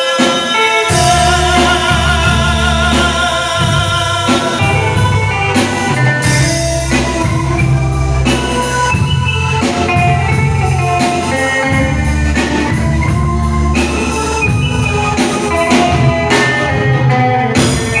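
Live band playing amplified through an SP Pelican PA system with one subwoofer per side: electric bass, drum kit and keyboards in a steady dance rhythm with a heavy low end. The bass and drums come in about a second in.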